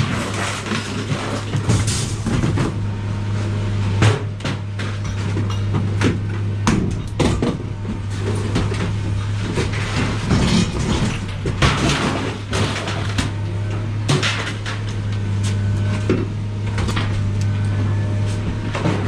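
Repeated knocks and clatter of hard objects being handled, over a steady low hum.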